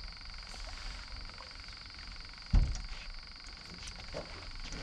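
Steady chorus of frogs calling, a continuous high-pitched calling in the background, with one heavy low thump about two and a half seconds in.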